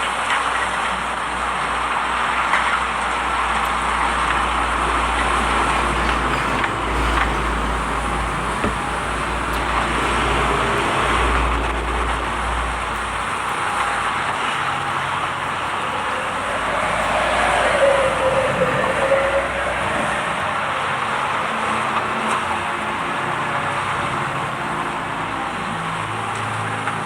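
Large excavator engine running with a steady mechanical din; a low rumble under it drops away about halfway through, and a short whine dips and rises about two-thirds of the way in.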